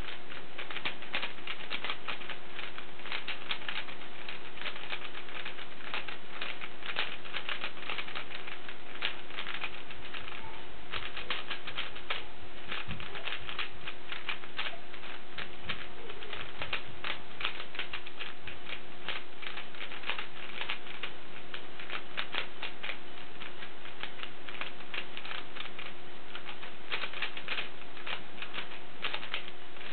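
A 3x3 Rubik's cube's plastic layers being turned at speed: rapid clicking and clacking in quick runs of turns with brief pauses between them, as PLL algorithms are executed one after another.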